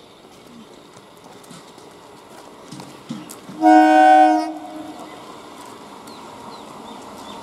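Horn of an approaching EMU electric local train sounding one blast of about a second, a little past halfway through. Under it, the train's low running rumble grows as it draws closer.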